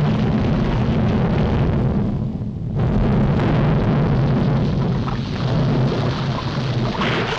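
Animated-film sound effects of a volcanic eruption: a loud, continuous rumble with crashing of falling rocks and pouring lava, the higher crackle dropping away briefly about two seconds in.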